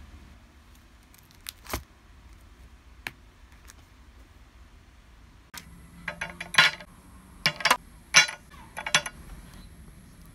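Ice cubes dropped into a ribbed drinking glass, clinking sharply against the glass several times in the second half. Before that, a few faint clicks and rustles of plastic photocard sleeves being handled.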